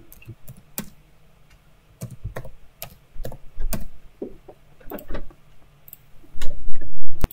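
Computer keyboard typing: irregular single keystrokes while a file name is typed. Near the end comes a louder, low thud lasting under a second.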